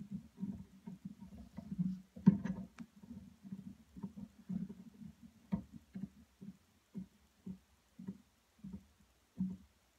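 Steel wing nut being twisted down a bolt by hand on a wooden pedalboard contact strip: short scrapes and knocks with each turn, a sharper click about two seconds in, then separate twists about twice a second.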